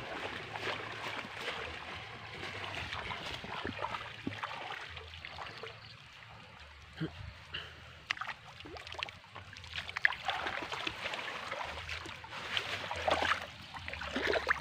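Shallow pond water splashing and sloshing as people wade through it hauling a seine net. Short splashes and drips come more often in the second half.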